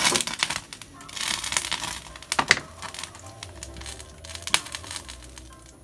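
Hot oil crackling and sizzling in a pan over a wood fire, with a new motorcycle cylinder block and piston being heated in it to season ('cook') them in place of a running-in period. Sharp clicks run through it, the loudest about two and a half and four and a half seconds in.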